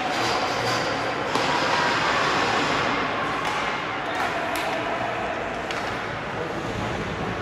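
Ice hockey rink sound during play: a steady scrape of skates on the ice, a few sharp knocks of sticks and puck, and spectators' voices in the background.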